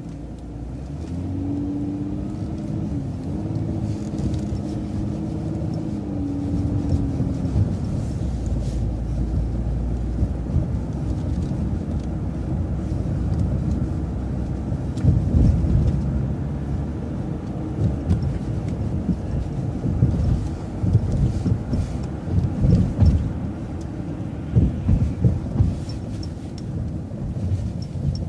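MCO ViewMaster motor coach driving, heard from on board as a steady low rumble of engine and road noise. The engine note rises and levels off in the first several seconds, and several low thumps come in the second half.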